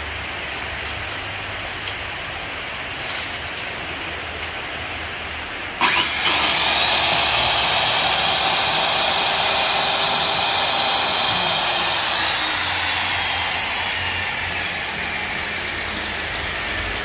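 Hitachi 100-volt power tool with a 180 mm blade, switched on about six seconds in: its motor spins up to a steady high whine. Near the middle it is let off, and the whine falls as it winds down. A low steady hum is there before it starts.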